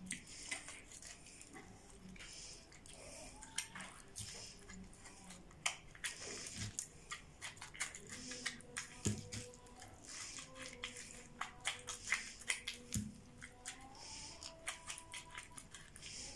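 Soft wet squelching and crackling of raw rice stuffing being pushed by hand through a funnel into a mombar (intestine casing), with many small irregular clicks as the grains pack in.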